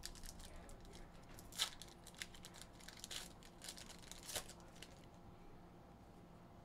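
Foil wrapper of a Goodwin Champions trading-card pack crinkling and tearing as it is opened by hand: faint, scattered crackles and rustles that thin out after about five seconds.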